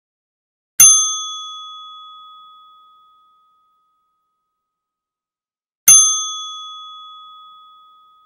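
A bell struck twice, about five seconds apart, each strike ringing out and fading over a couple of seconds: the alert that the countdown timer has reached zero.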